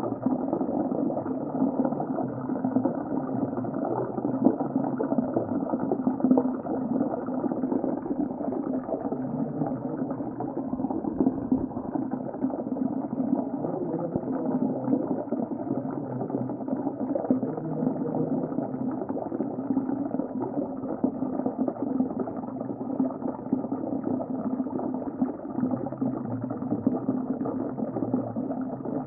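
Muffled underwater sea ambience: a steady, dull wash of churning water noise with no breaks.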